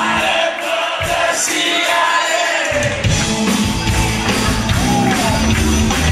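Live rock band with a male singer. The bass and drums drop away for the first couple of seconds under the voice, then the full band comes back in a little under three seconds in.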